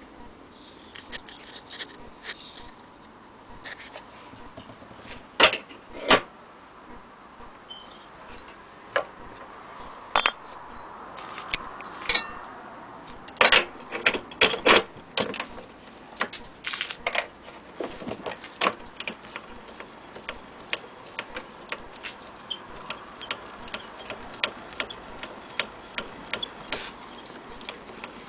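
Scattered metal clicks and clinks from the parts of an HMV portable gramophone being handled, including the chrome soundbox and the winding crank. The clicks come quicker and lighter in the last few seconds.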